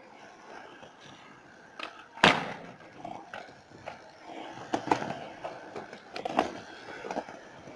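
Skateboard wheels rolling over rough, cracked concrete, with one loud sharp clack of the board about two seconds in and several lighter clacks in the second half.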